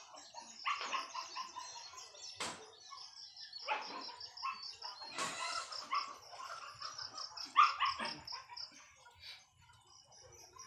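Short animal calls, about half a dozen, over a rapid, steady run of high chirping.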